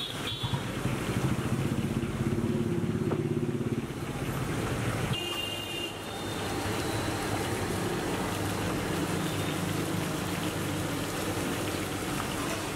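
A motor vehicle engine running close by, loudest in the first few seconds, over the steady sizzle of potato slices deep-frying in a large kadai of oil.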